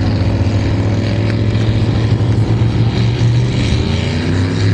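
Motorboat engines running, a steady low engine drone with a second engine note rising in pitch near the end.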